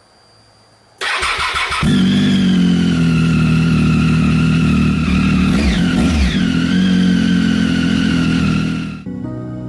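Motorcycle engine being started: about a second of starter cranking, then the engine catches and runs steadily, briefly wavering in pitch past the middle, before it cuts off suddenly near the end.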